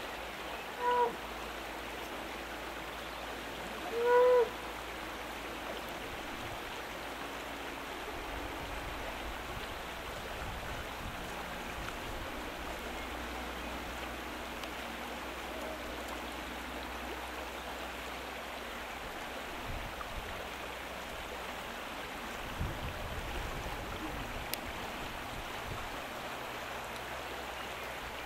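A shallow river flowing steadily over its stony bed. Two short pitched calls stand out about one and four seconds in, the second one louder.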